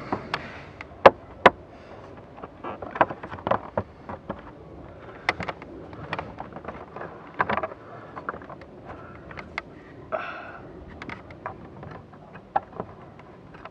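Scattered clicks and knocks, with rustling between them, as a plastic footwell cover panel over the blower motor is handled and fitted back into place by hand. The two loudest, sharpest clicks come close together about a second in.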